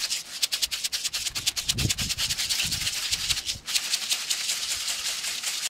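Container of Tannerite-type binary exploding-target mix, ammonium nitrate and aluminium powder, being shaken hard to blend it: a rapid, even rattle of powder against the container, with a short break a little past halfway.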